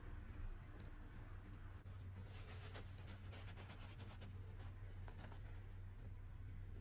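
Faint rustling and handling of a small fabric doll dress, mostly between two and four seconds in, with a couple of light clicks, over a steady low hum.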